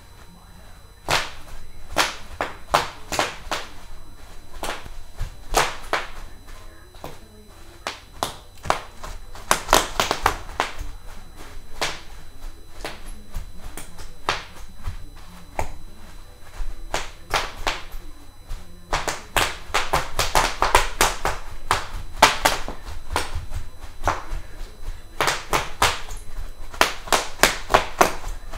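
Bubble wrap being popped by stepping and pressing on it: many sharp, irregular pops, coming thick and fast in stretches.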